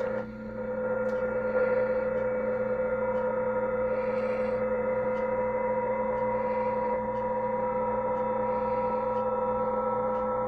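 Tecsun PL-990x shortwave receiver in USB mode on the 20 m band putting out PSK31 digital-mode signals over band hiss: several steady tones at different pitches, the strongest a low tone near 500 Hz, with another, higher tone joining about three seconds in.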